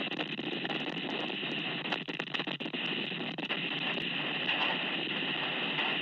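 Storm wind blowing against a security camera's small microphone during a blizzard: a steady, rough rushing noise with many small crackling clicks.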